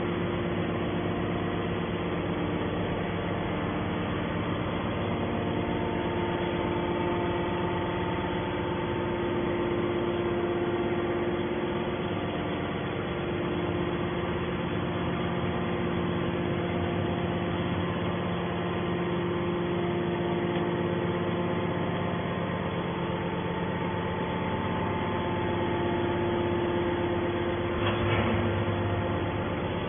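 Hydraulic scrap metal baler's power unit running, a steady machine hum with several steady tones, some fading in and out. Near the end there is a brief louder noise.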